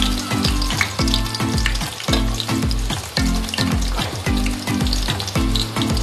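Sliced onions frying in hot mustard oil in an aluminium pot: a continuous sizzle with scattered small pops. A steady low musical beat runs underneath.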